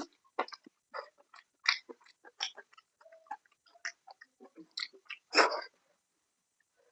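Close-miked eating sounds: a person chewing and smacking on a mouthful of fish curry and salad, in quick irregular wet clicks and crunches. The loudest burst comes a little past five seconds in, and then the mouth noise stops.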